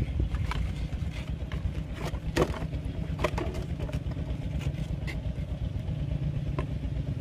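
A small engine running steadily, with a few light clicks and knocks over it.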